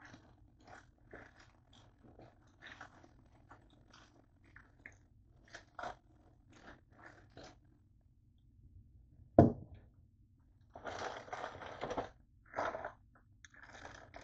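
Off-screen kitchen handling: scattered light taps and clicks, one sharp knock about nine seconds in, then a couple of seconds of rough scraping noise.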